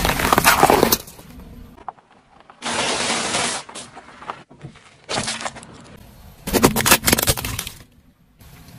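Objects crunching and cracking as they are crushed under a car's tyre, in four separate bursts with sharp cracks in the last one.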